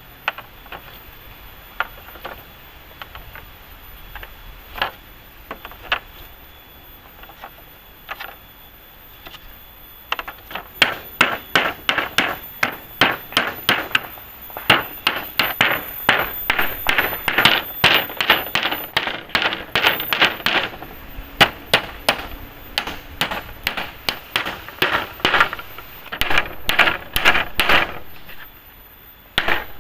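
A hand tool striking wood: a few scattered knocks, then from about a third of the way in a rapid run of sharp blows, about three a second, that stops briefly near the end.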